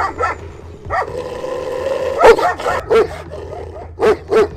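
Central Asian Shepherd (Alabai) guard dog barking through a kennel fence in a string of about eight separate barks, the loudest about two seconds in: territorial guarding barks warning strangers off its property.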